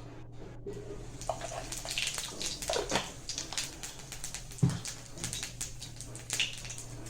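Cumin seeds sizzling and spluttering in hot oil in a kadai, the crackle starting about a second in, over a steady low hum. A single knock about four and a half seconds in.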